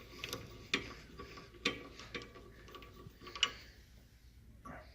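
A few scattered light metallic clicks and knocks, about five over the few seconds, from hand-working the parts of a small metal lathe with its motor switched off.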